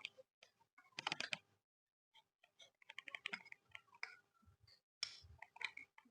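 Faint scattered clicks and light taps from small parts being handled, in little clusters about one, three and five seconds in.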